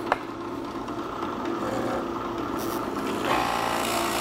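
Floor-standing Grizzly drill press running, its Forstner bit cutting into a wooden board to go almost all the way through. A sharp click just after the start, and the cutting gets louder about three seconds in.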